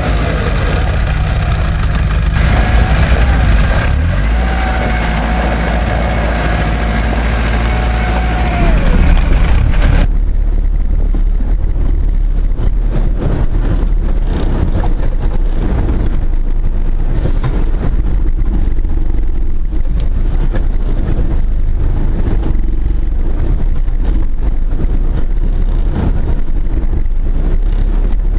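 Toyota Land Cruiser engine revving as the 4x4 crawls over a snowy mound, with a wavering whine in it. About ten seconds in the sound cuts suddenly to the low rumble of a Toyota 4x4 driving over rough ground, heard from on board, with many small knocks and jolts.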